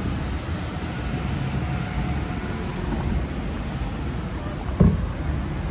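A steady low rumble, with a single short thump near the end.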